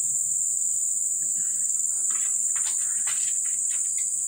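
Steady, high-pitched insect chirring, like a chorus of crickets or cicadas, running without a break. In the second half come several short scuffs and rustles, fitting the cats pawing at each other on a plastic stool.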